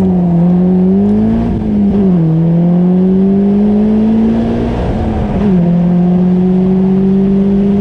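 Caterham 310S's 1.6-litre four-cylinder engine under full-throttle acceleration from a standing start, heard from the open cockpit. The engine note climbs, drops at an upshift about two seconds in, climbs again, and drops at a second upshift about five and a half seconds in before rising once more.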